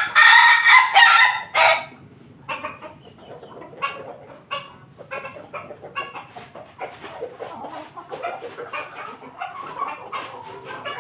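A rooster crows loudly in a broken call lasting nearly two seconds at the start, then chickens keep clucking and chattering more quietly.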